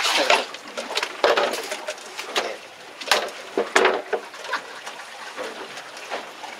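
Irregular knocks and thuds on a boat deck as a yellowtail (buri) is handled and killed with a knife and a wooden-handled tool during ikejime.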